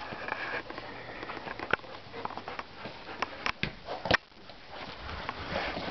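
A German Shepherd and an Old English Sheepdog puppy romping on grass: breathy sniffing and snuffling with scattered light knocks and scuffs, several of them sharp, bunched about three to four seconds in.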